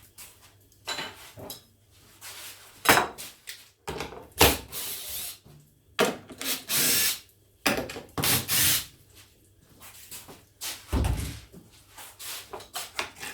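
Wooden jig parts knocked and handled on a workbench, with a few short hisses of aerosol silicone lubricant sprayed on the jig in the middle and a low thump near the end.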